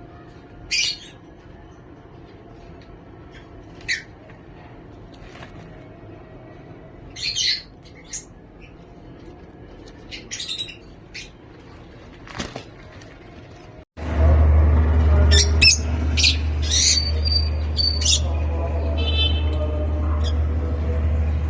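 Pet lovebirds giving short, separate high chirps and squawks. About two-thirds of the way through a steady low hum comes in and stays, with more chirps over it.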